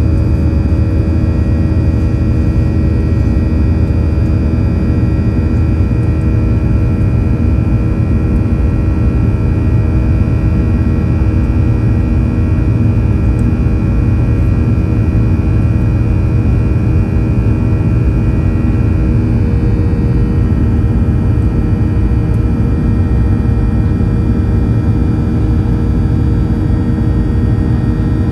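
Boeing 737-800 CFM56-7B turbofan engine heard from inside the cabin at a window seat beside the engine, climbing just after takeoff. It makes a loud, steady rumble with several steady whining tones over it. About two-thirds of the way through, some of the higher whine tones fade away.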